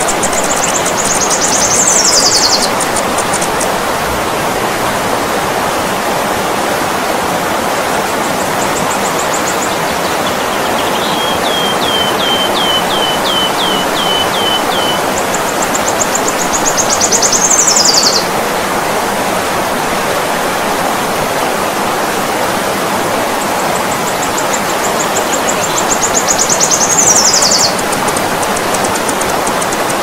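River water flowing steadily, with high-pitched bird song over it: a buzzy high phrase ending in a falling sweep, heard three times, and a quick run of about ten short chirps in the middle.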